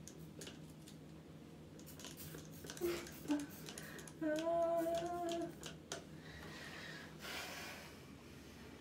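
A woman's nervous whimper: a short whine, then a held, steady-pitched 'mmm' lasting just over a second in the middle. Scattered clicks and rustling of handling come before it, and a short hiss follows near the end.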